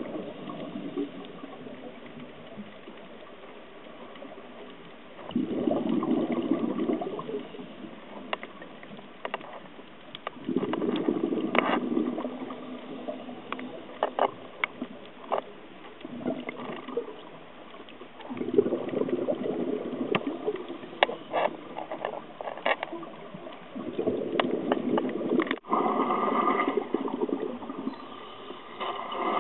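Scuba regulator breathing heard underwater: a gush of exhaled bubbles every five to seven seconds, with sharp clicks and crackles between the breaths.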